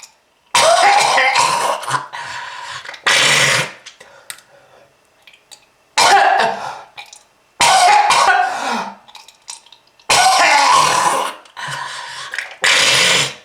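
A person coughing in about six loud, harsh hacking bouts with short pauses between them: a smoker's cough.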